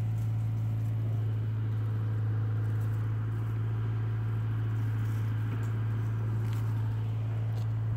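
A steady low hum that does not change, with faint rustling and a few light ticks from a cat moving through tall grass.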